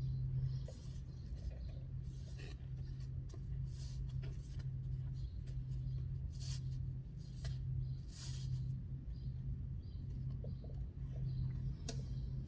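Hands working oil into an air filter: scattered soft rustles, squishes and light clicks, over a steady low hum.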